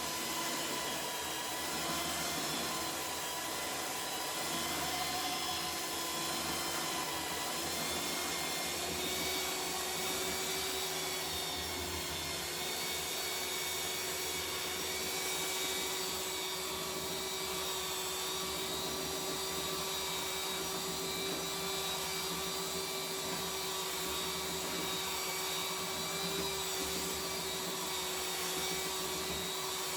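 Jellas 750-watt belt sander sanding, with a Numatic Henry vacuum running on its dust port; the two motors make a steady whine with several held tones.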